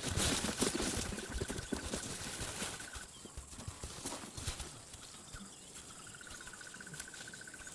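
Young lions play-fighting: scuffling, thuds and rustling for the first three seconds, then fainter footfalls and scattered knocks.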